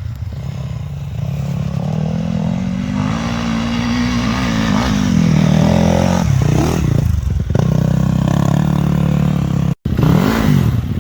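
Off-road dirt bike engine revving and working under throttle as the bike approaches, getting louder over the first half, with its pitch rising and falling as the throttle is opened and eased.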